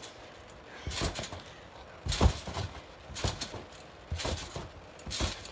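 A child bouncing on a trampoline: five landings on the mat at about one a second, each a short thump, the loudest about two seconds in.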